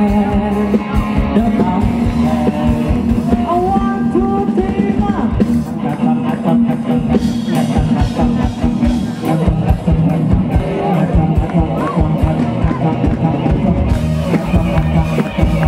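Live rock band playing loud, with electric guitar, a drum kit and a male singer.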